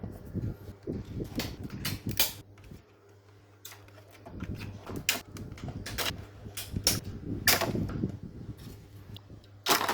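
Irregular clicks and knocks of small parts and tools being handled, over a low steady hum.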